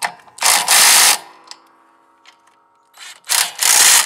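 Cordless impact driver running twice in bursts of about a second each, snugging the nuts on a lawn tractor's drive-belt idler pulleys. The second burst comes near the end.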